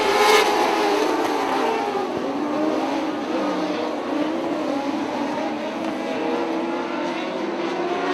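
A pack of Midwest Mod Lite dirt-track race cars running at speed, several engines overlapping and rising and falling in pitch as they race through the turns and down the straightaway. The sound is briefly louder just after the start.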